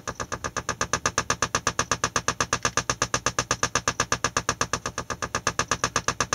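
Three-transistor astable multivibrator 'ratata' sound generator, heard through an amplifier: a machine-gun-like rattle of short buzzy pulses, about ten a second, at an even rate.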